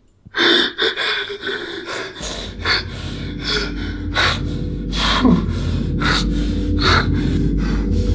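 A man sobbing in distress, with sharp gasping breaths one after another at irregular spacing. A low droning tone swells in underneath from about two seconds in.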